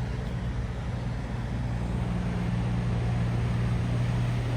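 Land Rover TD5 five-cylinder diesel engine running with a steady low drone while approaching floodwater, sounding rough: "doesn't sound too good."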